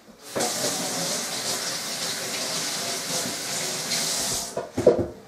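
Water running from a kitchen tap into a sink for about four seconds, then cut off, followed by a couple of sharp knocks.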